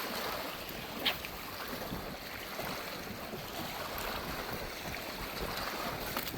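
Steady wind and water noise, with a single sharp click about a second in.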